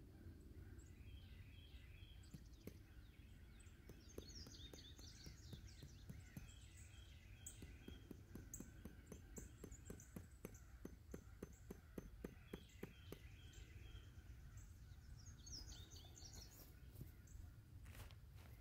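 Faint outdoor ambience: birds chirping in repeated short phrases over a low steady rumble. A run of faint rapid ticks, about four a second, comes in the middle.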